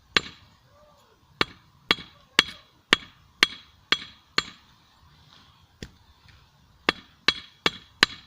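Hand hammer striking a hot steel screw blade on a small 25 lb anvil: about a dozen blows, roughly two a second, each with a brief metallic ring, with a pause of a little over a second midway.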